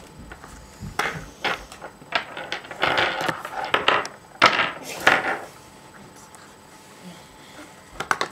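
Small plastic counting-bear tokens clattering and sliding on a tabletop as they are scooped up in a few handfuls, then a few light clicks near the end as the dreidel is spun.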